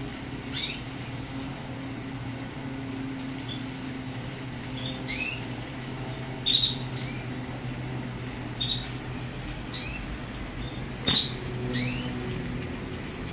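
Caged canaries giving short chirps that rise sharply in pitch, about eight calls spread out with a second or so between them. A steady low hum runs underneath.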